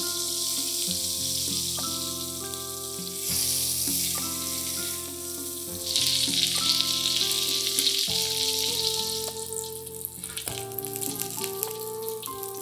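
Salted fish bones frying in hot oil in a wok: a sizzle that swells about three seconds in, is loudest from about six to nine seconds, then dies down. Soft background music with held notes plays underneath.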